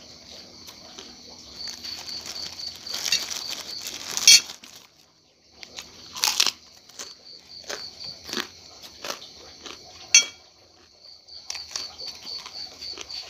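A person eating a rice meal with a metal spoon on a ceramic plate: scraping and mouth sounds, a stretch of rustling about three seconds in, and sharp clinks of the spoon near four and ten seconds in. Crickets chirp throughout in quick even pulses, about four a second.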